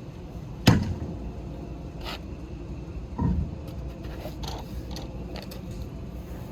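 A sharp knock under a second in, then a duller thump about three seconds in, with faint clicks and scrapes between them: hard objects being handled and set down.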